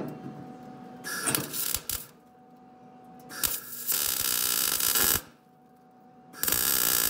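A Lincoln 110 MIG welder's arc crackling and hissing in three tack-weld bursts on car body sheet metal. The first, about a second in, is short and broken; the last two run steady, as the wire feeds better after snagging in a kinked line.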